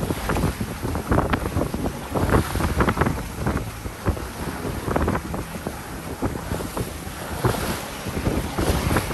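Wind buffeting the microphone in uneven gusts over water rushing and splashing along the hull of a Compromis 777 sailing yacht as it cuts through the waves under sail.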